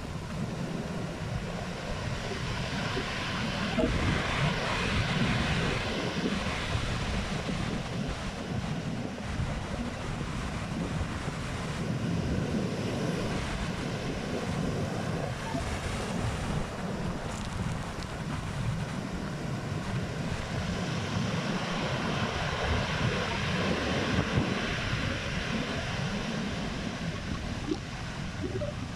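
Strong wind buffeting the microphone, with the steady rush of waves breaking on the shore; the higher hiss of the surf swells twice.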